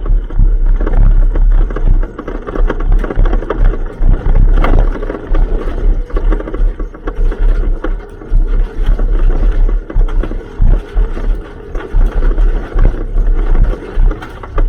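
Hyundai Excel rally car at speed heard from onboard: engine running under heavy rumble, with constant rattling and scraping clicks from the car and road surface.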